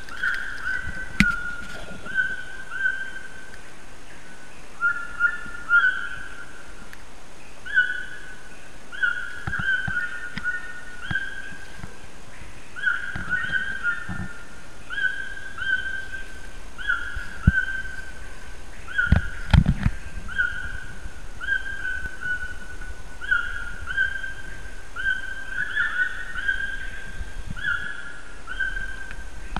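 A clear whistled note repeated about once a second, each short and nearly level in pitch with a slight downward slide, with a few dull thumps from handling or footsteps.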